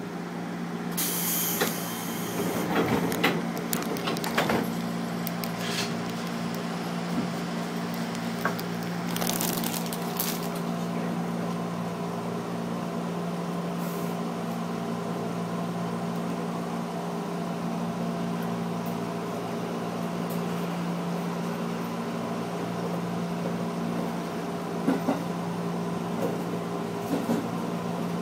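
Electric commuter train heard from inside its driver's cab as it pulls away from a station: a steady electrical hum at one pitch, with two short hisses about a second and about nine seconds in, and scattered clicks and knocks.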